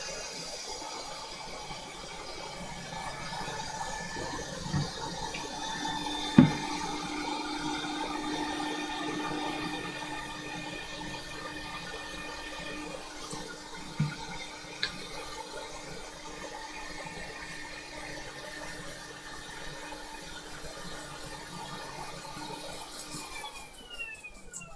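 Hot air rework station blowing a steady hiss of air, with a few sharp clicks and taps, the loudest about six seconds in. Near the end the airflow cuts off and the fan winds down.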